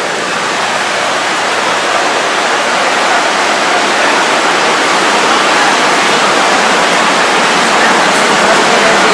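Steady, loud rushing noise with no distinct events, growing slightly louder over the span.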